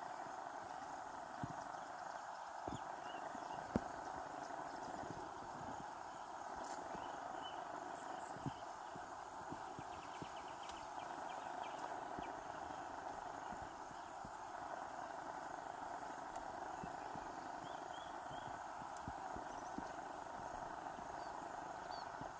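Insects calling in a steady high-pitched drone that swells and dips in bouts about every five seconds, over a dense lower chorus. A few faint low knocks come in the first few seconds.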